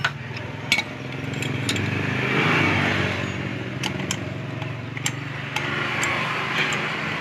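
Scattered sharp metal clinks and taps as a scooter's CVT clutch bell is fitted and gripped with a steel clutch-holder tool. Under them runs a steady engine hum from other vehicles, which swells twice.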